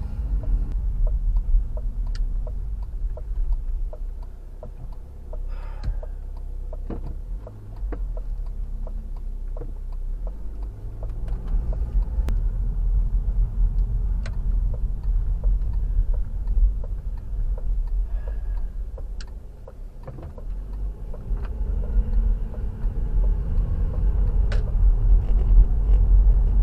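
Car interior noise while driving: a steady low rumble of engine and road, with scattered light clicks and knocks.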